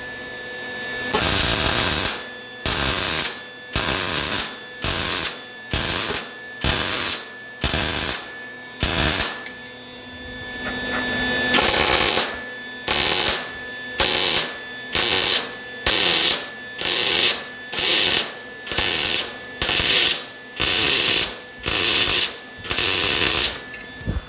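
MIG welder stitch-welding a joint in steel exhaust tubing one dot at a time: short arc bursts of about half a second each, a quick run of about nine, a pause of about two seconds near the middle, then about fourteen more.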